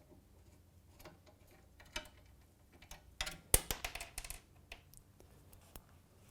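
A 13 mm spanner working a guard bolt on the mower: scattered light metallic clicks and clinks, with a quick flurry of clicks about three seconds in.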